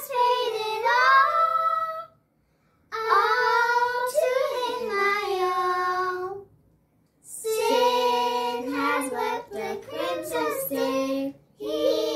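Young girls singing together without accompaniment, in sung phrases separated by short silences about 2 and 7 seconds in.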